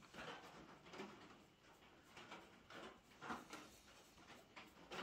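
Faint, irregular swishes of a bristle paintbrush spreading wet clear gloss finish over a black walnut gun stock, a few soft strokes a second or so apart.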